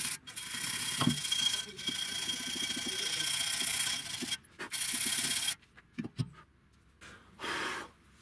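Hand wire brush scrubbing rust and dirt off the steel pad guide rails of a BMW E36 rear brake caliper: a harsh, continuous rasping scrub with a couple of short breaks. It stops about five and a half seconds in, and one short last scrub follows near the end.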